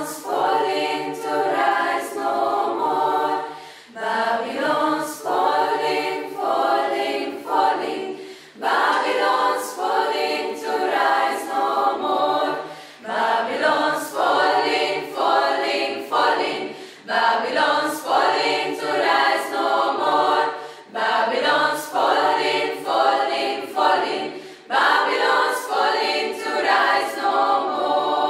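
A mixed youth choir sings a cappella in several parts. The song moves in phrases of about four seconds, with brief breaths between them.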